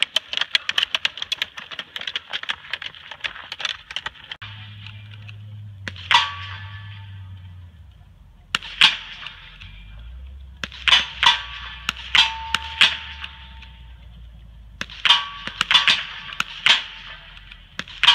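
Quick clicking of ski-pole tips and footsteps on gravel as several athletes bound uphill with poles. After about four seconds, scattered cracks from small-bore .22 biathlon rifles firing in turn, several followed by the ringing clang of the steel targets being hit.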